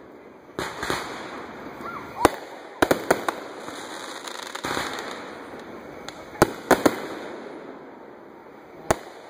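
Aerial fireworks bursting overhead: a string of sharp bangs, some in quick pairs and triples, with crackling and hissing between them.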